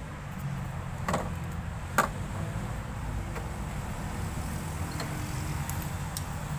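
Two sharp metallic clicks about a second apart as hand tools and a cordless drill's bit are handled, with a few faint ticks later, over a steady low rumble.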